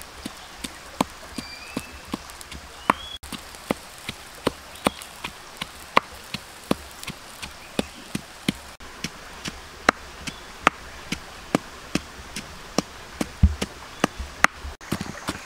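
Pestle pounding in a mortar, steady sharp knocks about three a second, crushing chilies. A bird chirps a few times about a second in.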